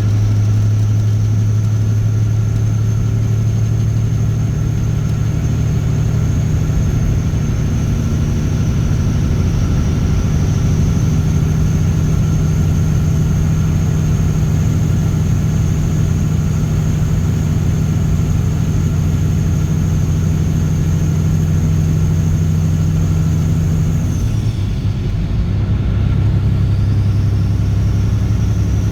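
Caterpillar C15 ACERT inline-six diesel with straight pipes, running loud and steady under way; the engine note changes and dips briefly near the end, then settles back.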